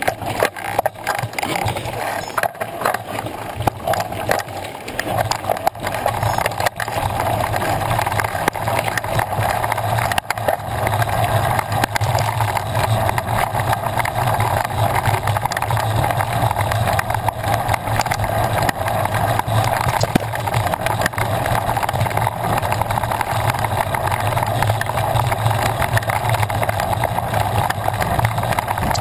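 Mountain bike rolling along a rough dirt and gravel trail, heard up close from the rider's camera: a steady tyre rumble with constant rattling and small knocks from the bumpy ground.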